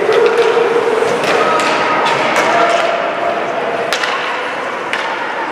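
Youth ice hockey game in an indoor rink: sharp clacks of sticks and puck, about half a dozen, over a steady din of skates on the ice and voices in the rink.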